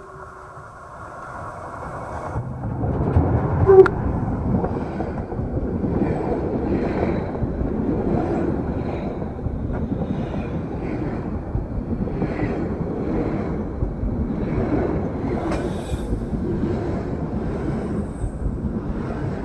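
A metre-gauge steam train rolling right over the rails above the camera: the wheels clatter and rumble steadily as the locomotive and coaches pass, with a sharp loud knock about four seconds in as the locomotive arrives overhead. The last of a steam whistle trails off at the very start.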